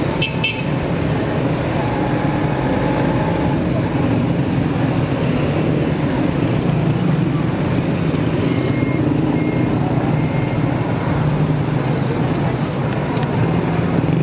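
Motorcycle engine running steadily while riding through street traffic, with continuous road and traffic noise.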